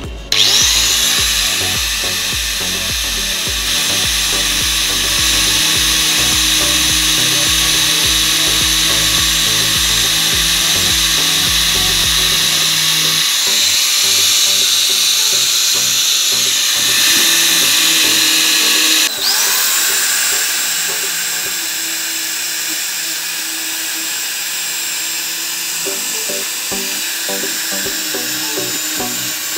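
Electric angle grinder fitted with a paper disc, spinning up with a rising whine and running at high speed as it cuts into a plastic helmet shell. About two-thirds of the way through it briefly cuts out and spins up again. Background music plays underneath.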